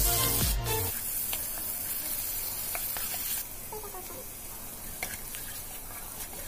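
Onion and ginger-garlic paste masala sizzling in hot oil in a nonstick kadai, stirred with a silicone spatula that scrapes and ticks now and then: the masala frying stage. Background music fades out about a second in, and the sizzle drops a little quieter past halfway.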